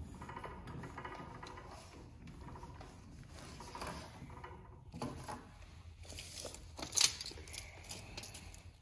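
Faint handling noises: fabric being shifted under a sewing machine's presser foot and a tape measure being drawn out, with a sharp click about seven seconds in.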